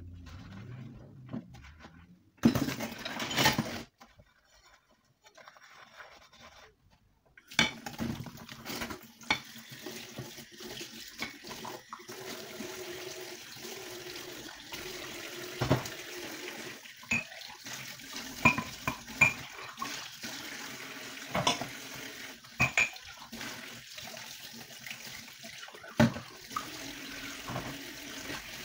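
Dishes being hand-washed in a stainless steel sink: after a quieter start, a kitchen tap runs steadily from about a quarter of the way in while cups and glasses are rinsed under it, with occasional clinks of crockery and glass against each other and the sink.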